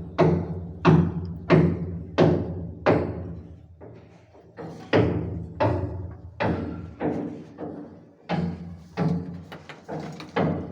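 Background music with a steady percussive beat: sharp struck notes about one and a half times a second over sustained bass notes, with two short lulls.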